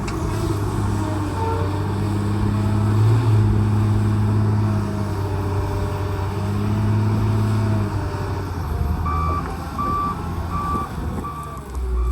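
A loader's diesel engine running, its pitch rising and falling as it works. About nine seconds in, a reversing alarm starts beeping steadily, about twice a second.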